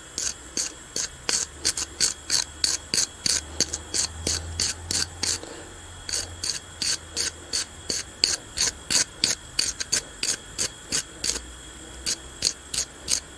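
Hand scraping or brushing strokes, evenly paced at about three a second with a short pause about halfway through: a fouled lawn mower spark plug being scraped clean.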